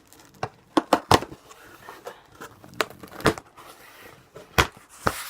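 Safety scissors snipping and tearing at a shipping package: a series of sharp, irregular snips and crinkles, the loudest cluster around a second in.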